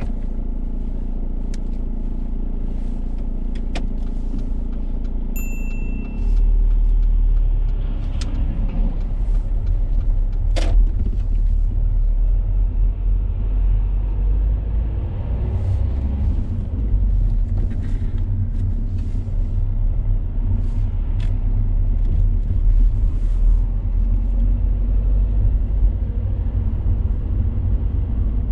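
Road and engine noise inside a moving car's cabin: a steady low rumble that gets louder about six seconds in. There is a short high beep just before the rise and a few light clicks.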